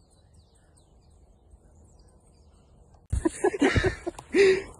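Faint outdoor background with distant birds chirping. About three seconds in, a loud burst of noise with knocks and a few voice-like sounds takes over.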